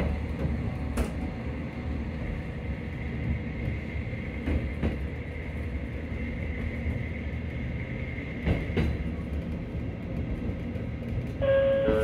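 Train running on the rails, heard from inside the carriage: a steady rumble with a faint high whine, and a double clack of the wheels over rail joints about every four seconds.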